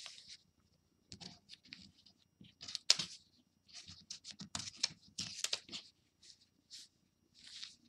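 Tracing paper rustling and crackling as a sheet is lifted and folded back over the drawing paper, in a string of short, crisp bursts.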